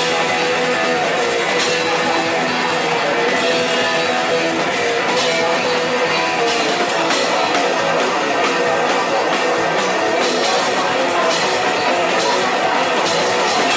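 Hardcore thrash punk band playing live, loud and steady: a drum kit with repeated cymbal crashes under electric guitar and bass guitar.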